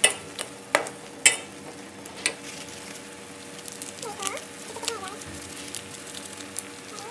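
Genjer (yellow velvetleaf) stir-frying in hot oil in a wok: steady sizzling, with a metal spatula scraping and knocking against the pan, the sharpest knocks in the first couple of seconds.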